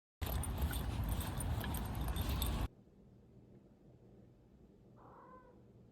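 About two and a half seconds of jingling, clinking clatter over a low rumble, which cuts off abruptly into quiet room tone. A faint short vocal sound comes about five seconds in.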